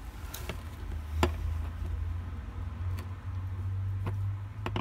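Steel spanners clicking on the brass compression nuts of a quarter-turn ball valve as the nut on a copper gas pipe is tightened onto its olive. There are about six sharp metallic clicks, the loudest about a second in, over a steady low hum.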